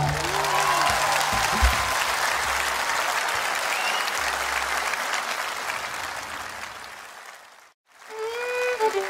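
Audience applauding at the end of a live folk song, fading out about seven and a half seconds in. After a moment's silence, a fiddle tune starts near the end.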